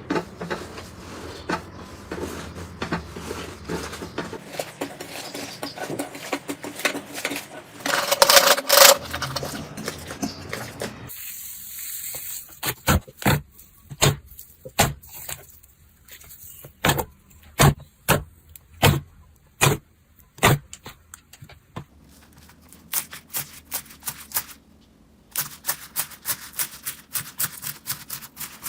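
Slime being squeezed, pressed and poked by hand: first a continuous wet crackling with clicks, then sharp separate pops about one a second, then a quicker run of clicks.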